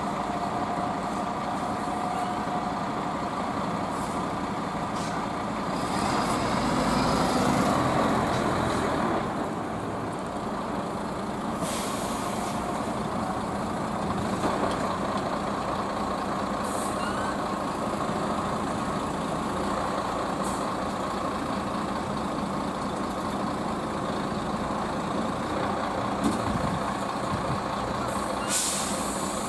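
Diesel engines of heavy Mercedes-Benz trucks with trailers running as they creep forward in a slow convoy, one pulling harder and louder about six to nine seconds in. Short air-brake hisses about twelve seconds in and again near the end.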